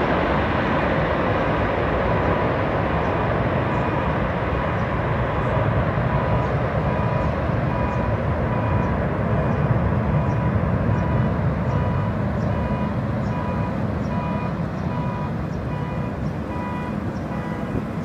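Four D-18T turbofans of an Antonov An-124 at takeoff power, a steady jet rumble that slowly fades as the freighter climbs away. From about three seconds in, a car alarm beeps over it in a steady repeating pattern, set off by the low-flying jet.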